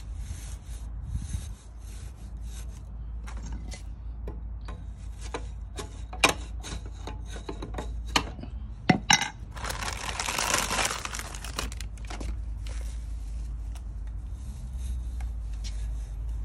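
A stainless-steel scouring pad being pushed and twisted into a motorcycle's chrome exhaust tip as a makeshift baffle: crinkly metal-on-metal rubbing and scraping, with a few sharp clicks near the middle and a longer rasping scrape shortly after.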